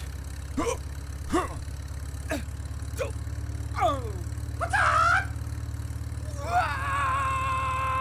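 A small motor runs with a steady, low, even hum. Short squeaky sounds that sweep up and down come over it, and about six and a half seconds in a held tone with several pitches sets in.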